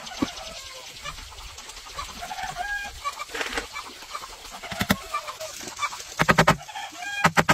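Chickens clucking. Near the end, a hammer tapping a nail into a wooden plank in quick, even strikes, the loudest sound.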